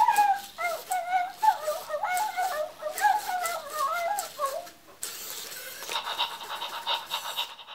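Zoomer robot dog performing a random trick. It gives wavering electronic dog sounds from its speaker in short rising-and-falling phrases. About five seconds in, a whirring, rattling sound from its motors and wheels takes over as it moves.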